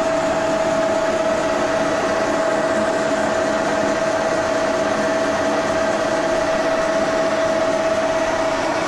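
A machine running steadily: an even rushing drone with one constant whining tone that never changes.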